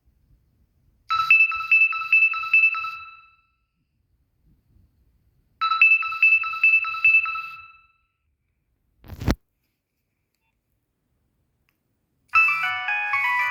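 Nokia 6101 mobile phone playing ringtones: a quick run of pitched beeps, heard twice with a gap between, each dying away. About nine seconds in there is a single thump, and near the end a new many-noted melody begins.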